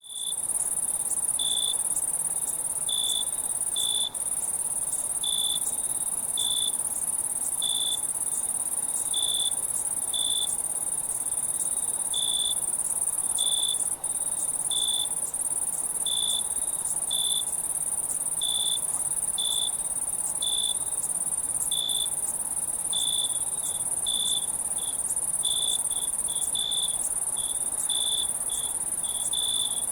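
Crickets chirping in a night ambience: a steady high trill, with short lower chirps repeating roughly once a second over it.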